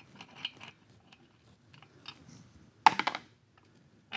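Light clicks and clinks of small metal engine parts and hand tools being handled during an engine teardown, with a short, louder metallic rattle about three seconds in.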